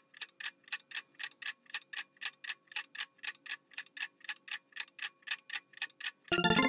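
Clock-ticking sound effect counting down the time to answer, a steady run of about four ticks a second. A bright chiming jingle starts just before the end.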